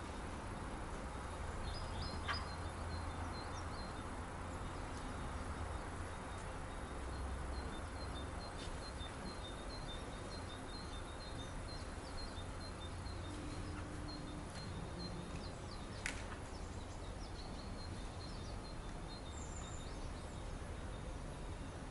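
Small birds chirp outdoors, one repeating short, high notes over and over, over a steady outdoor hiss with a low rumble. Two sharp clicks stand out, about two seconds in and again about sixteen seconds in.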